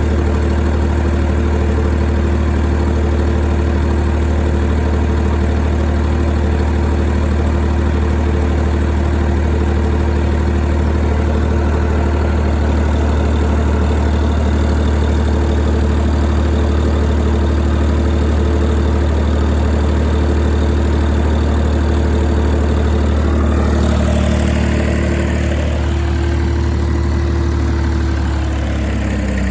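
YD385 diesel engine driving an 11 kW generator, running at a steady speed with a strong low hum. Near the end the note changes and the pitch sags.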